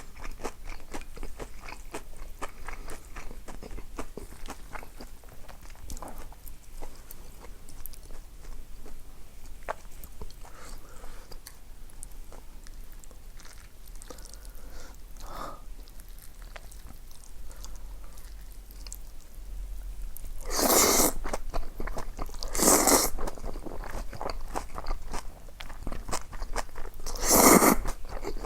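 Close-miked eating: steady chewing with many small crunches, as from deep-fried pork cutlet and spicy mixed noodles. Three louder bursts of crunching or slurping come in the last third.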